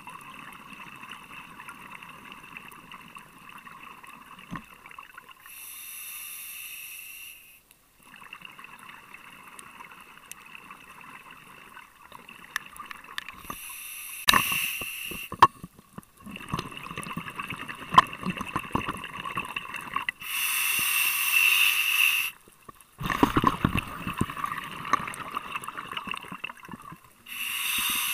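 Scuba diver breathing through a regulator underwater: a hissing inhale of about two seconds alternates with a longer, crackling, gurgling exhale of bubbles, four breaths in a row.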